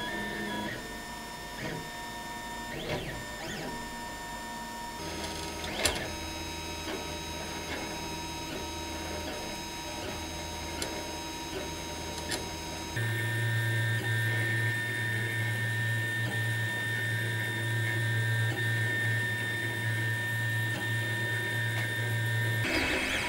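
Monoprice Select Mini 3D printer printing: its stepper motors whine in steady tones as the print head and bed move. The sound changes abruptly twice, about five and thirteen seconds in, and the last part carries a steady low hum with a high tone over it.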